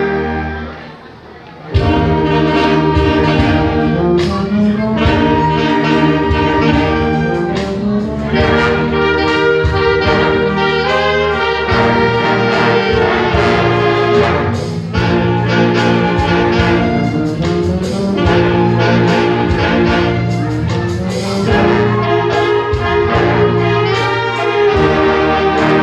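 An orchestra playing, with brass (trumpets and trombones) to the fore. A held chord dies away, and after a brief pause about a second in the full ensemble comes back in with a sharp attack and plays on.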